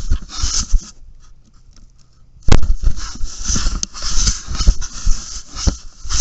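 A black bear pawing and mouthing a trail camera at close range: scraping, scratching and bumping on the camera's case. There is a quieter second or so, then a sharp loud knock and a steady run of scrapes and knocks.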